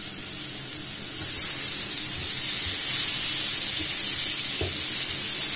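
Sliced zucchini, carrots, bell peppers and garlic sizzling in hot oil in a frying pan, a steady hiss that grows louder about a second in.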